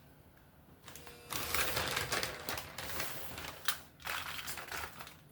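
Aluminium foil crinkling and crackling as it is wrapped around a stuffed baked potato, starting about a second in, with many small sharp clicks.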